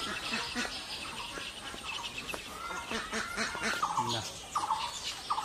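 Small birds chattering with rapid high chirps. From about four seconds in, a run of short buzzy notes repeats every second or so, and lower pulsed calls sound underneath in the first half.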